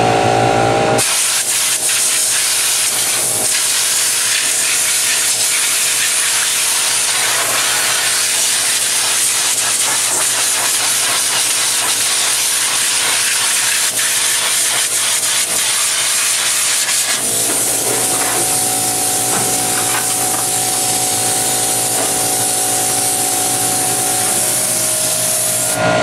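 Compressed air hissing steadily from an air-hose blow nozzle as it blows dust out of a refrigerator's condenser coil. The hiss starts about a second in and stops just before the end. Under it runs the steady hum of the small portable air compressor's motor, plainer from about two-thirds in, as its pressure switch starts it automatically.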